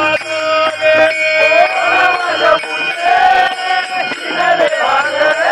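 Marathi devotional bhajan: male voices singing a chant-like melody over small brass hand cymbals (taal) clashing in a steady rhythm.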